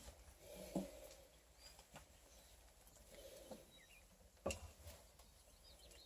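Near silence, with faint, brief high squeaks from a pile of 12-day-old coonhound cross puppies and a few soft knocks, the clearest about four and a half seconds in.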